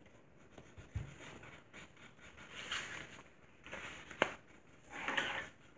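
Quiet handling of paper at a table: a felt-tip marker scratching on folded cardstock in a few short strokes, with a soft low thud about a second in and a sharp click just after four seconds.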